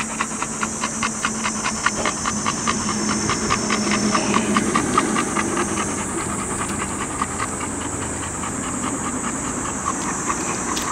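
A dog panting hard close to the microphone, quick and even breaths, over a steady high-pitched hiss in the background.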